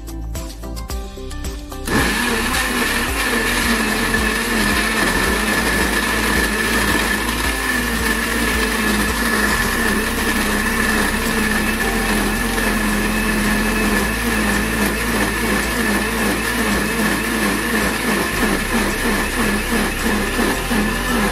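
Philips countertop blender switched on about two seconds in, then running steadily as it purées fruit into a smoothie.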